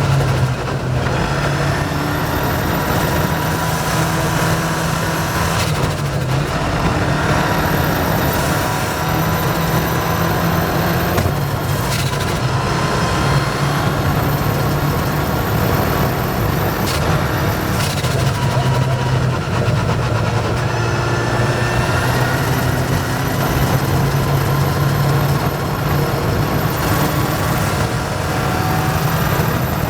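Rally car engine running hard on a stage, its pitch rising and dropping every few seconds as it revs and shifts, over a steady rush of road and tyre noise.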